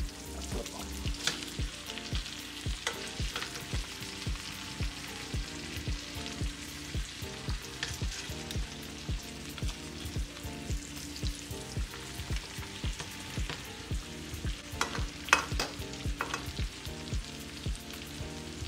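Pork chops frying in a nonstick skillet, a steady sizzle, while metal tongs click against the pan as the chops are turned over, about a second in, around three seconds in, and several times near the end. Quiet background music with a steady beat runs underneath.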